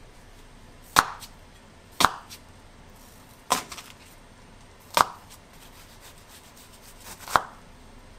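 Kitchen knife cutting through a peeled onion and knocking down on a bamboo cutting board: five sharp knocks, unevenly spaced, one every one to two and a half seconds.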